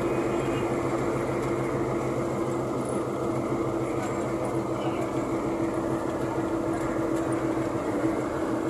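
Bus engine droning with a steady low hum under constant road and wind noise, heard on board while the bus cruises along a highway.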